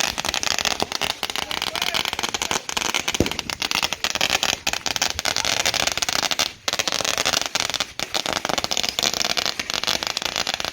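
Firecrackers going off in a fast, continuous crackle of many small pops each second, with a brief lull about six and a half seconds in.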